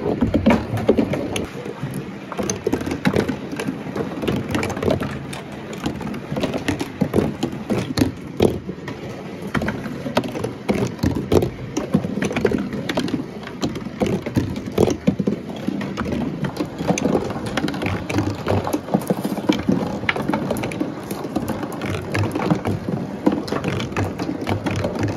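Marbles rolling and rattling along corrugated cardboard marble-run chutes, a continuous rumble broken by many irregular clicks and knocks as they bump the cardboard walls and drop between levels.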